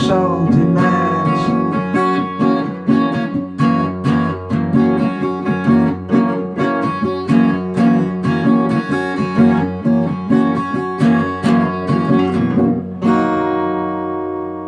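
Song outro on strummed acoustic guitar in a steady rhythm, ending about 13 seconds in on a final chord left to ring and fade.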